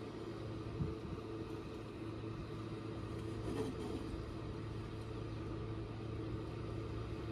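A steady low mechanical drone with a constant hum and a couple of faint steady tones above it, unchanging throughout.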